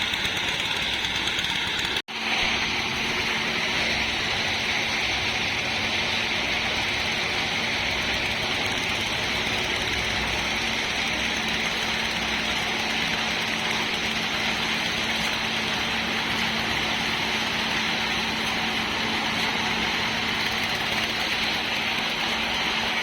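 Construction machinery engine running steadily at the road works, a continuous hiss with a low hum under it; the sound cuts out for an instant about two seconds in, then carries on unchanged.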